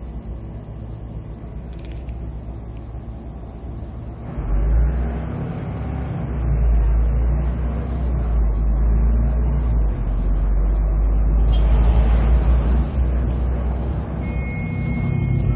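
Volvo B340M bus's DH12E Euro 5 diesel engine, a 12-litre straight-six rated at 340 hp, running steadily at first. About four seconds in it becomes a much louder, deeper rumble that keeps building, as the engine takes up load.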